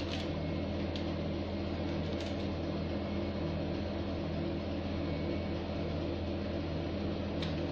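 Steady low mechanical hum of a running appliance or fan motor, even in level throughout, with a couple of faint light ticks near the start.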